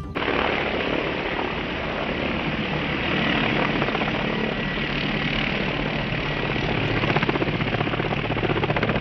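A light helicopter flying low close by, its rotor making a fast, steady beat over a thin, steady turbine whine.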